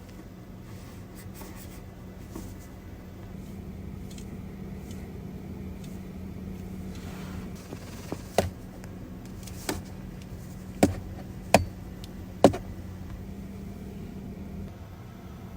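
Faint steady electrical hum inside a car cabin, broken in the second half by five sharp clicks about a second apart.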